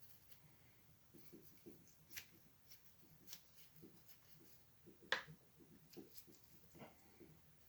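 Faint, irregular scrubbing strokes and small clicks of a track-cleaning eraser being worked on a model locomotive's dirty wheels, with one sharper click about five seconds in.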